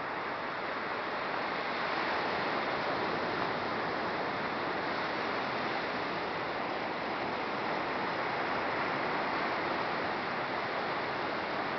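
Ocean surf breaking and washing up a sandy beach, a steady continuous rush of waves.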